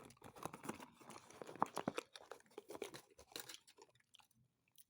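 Milk chocolate surprise egg being bitten and chewed close to the microphone: a dense run of crunching clicks that thins out after about three and a half seconds.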